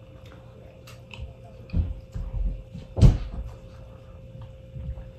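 Close-up chewing and mouth sounds of someone eating: a few soft thuds and clicks, with one sharp, louder smack or knock about three seconds in.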